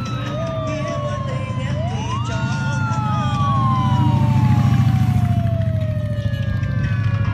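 A siren wailing in slow sweeps: it rises quickly about two seconds in, then falls slowly over several seconds. Under it a motorcycle engine passes close, loudest about four to five seconds in.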